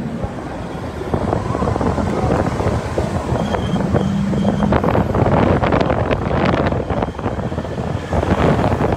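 Wind buffeting the phone's microphone from a moving vehicle, over road and traffic noise, the gusts growing stronger after about five seconds. A brief low steady tone sounds about four seconds in.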